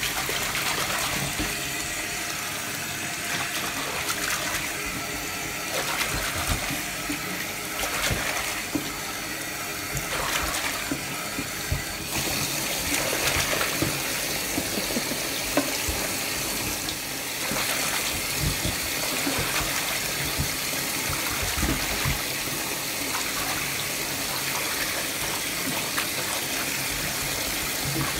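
Tap water running steadily into a sink, with occasional small splashes and knocks from a French bulldog puppy's paws moving in the water.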